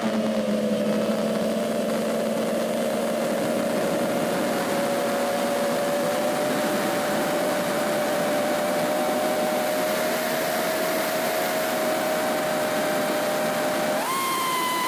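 FPV drone's electric motors and propellers whining steadily at low throttle, a few close pitches beating against each other. About fourteen seconds in the pitch jumps sharply up as the throttle is opened.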